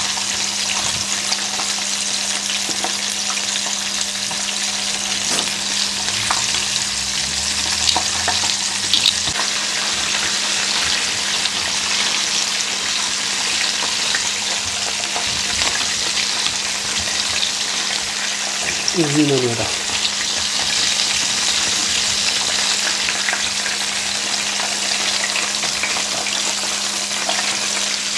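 Flour-battered chicken pieces deep-frying in a pot of hot oil: a steady sizzle and crackle of bubbling oil, with small clicks scattered through it.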